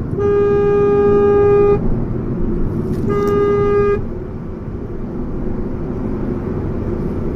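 Car horn honking twice, a long blast of about a second and a half and then a shorter one a second later, over steady road noise from the moving car. It is sounded to make a caravan blocking the fast lane move over.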